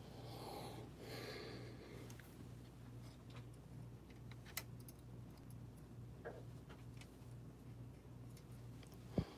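Faint clicks and taps of a small metal pin being fitted into the printer's sheet-metal side frame, a few scattered clicks with the sharpest knock near the end. A soft rustle of handling in the first two seconds, over a steady low hum.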